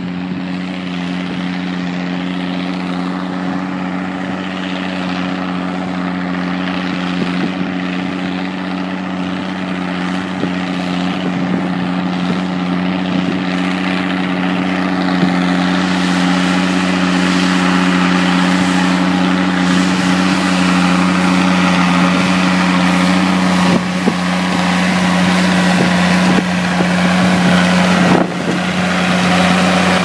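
Massey Ferguson 1200 tractor's six-cylinder diesel engine running steadily under load while pulling a plough. It grows gradually louder as the tractor approaches, with a brief break near the end.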